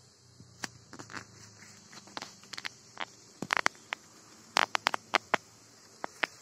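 Cumin seeds crackling in hot oil in a metal kadai: irregular sharp pops, a few at first and coming thicker about halfway through.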